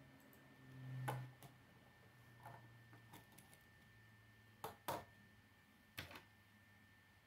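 Plastic K'nex rods and connectors clicking as they are handled and snapped together: about seven short, sharp clicks, the loudest a close pair about five seconds in.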